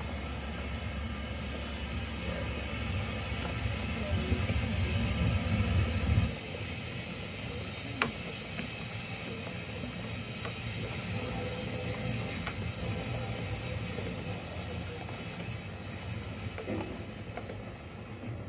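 0 gauge model steam locomotive and coaches rolling along the track. A low rumble of wheels and motor stops abruptly about six seconds in, over a steady hiss that drops away near the end, with a single sharp click about two seconds after the rumble stops.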